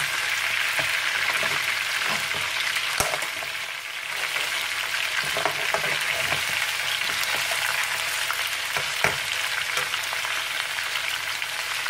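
Chicken pieces sizzling in hot oil in a karahi, with a slotted spatula stirring and scraping them and now and then clicking against the pan.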